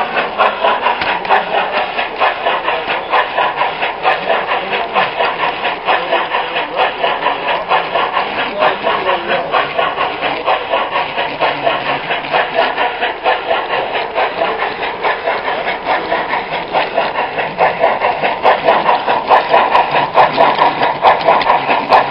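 Garden-railroad camera car running along large-scale track, heard close up from the car itself: a steady mechanical running noise with a fast, even clickety-clack of wheels on the rails.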